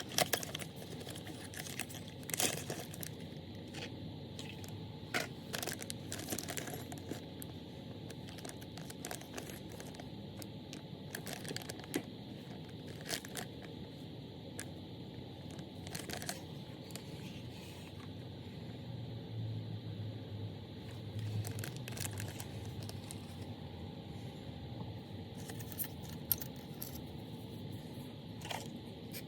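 Handling noise: scattered light clicks and rustling over a steady low hum.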